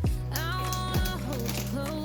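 Background pop music: two deep kick-drum beats about a second apart over a sustained bass, with a gliding melody line.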